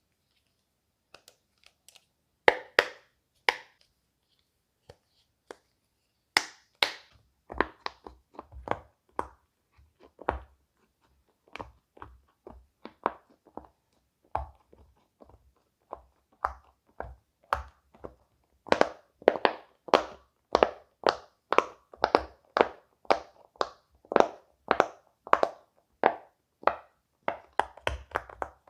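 Silicone pop-it fidget toy bubbles being pressed one after another, each a short pop. The pops are sparse and irregular at first, then run fairly evenly at about two a second through the second half.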